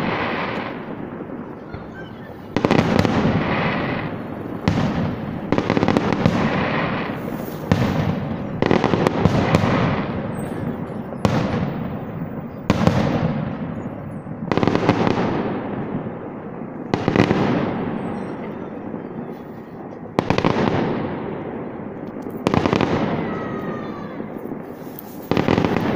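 Aerial firework shells bursting one after another, about one loud boom every two seconds, each rolling away in a long echo.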